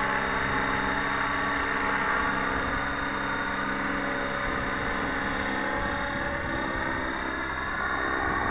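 Align T-Rex 700 radio-controlled helicopter in flight: a steady whine of its main rotor and drivetrain, getting louder near the end as it comes closer.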